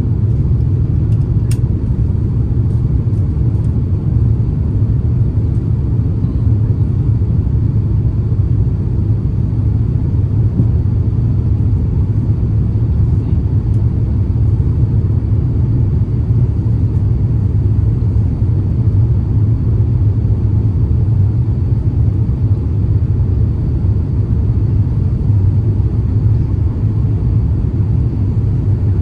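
Airbus A350-900 cabin noise heard from a window seat: a steady low rumble of engines and airflow while the jet is on approach.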